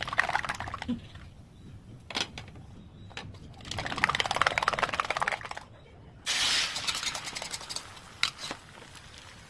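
Kitchen sounds of making an omelette: stretches of rapid crackly clicking and scraping, a few sharp knocks, and a loud hiss that starts suddenly about six seconds in and fades over the next two seconds.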